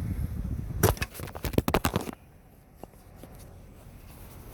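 Plastic interior trim panel being worked loose by hand: a rapid run of clicks and knocks lasting about a second, starting about a second in, then only faint handling.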